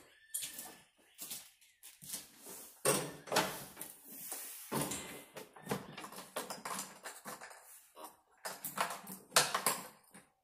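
Irregular knocks, scuffs and clothing rustle as a man climbs onto a lawn tractor seat and works the controls. The engine does not crank: the battery is too weak to turn it over.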